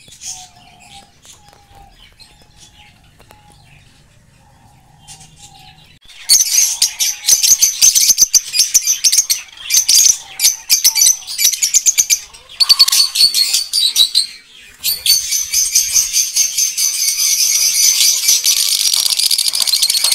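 A flock of small cage birds chirping. There are faint short calls for about the first six seconds, then loud, dense high-pitched chattering for the rest, with brief breaks.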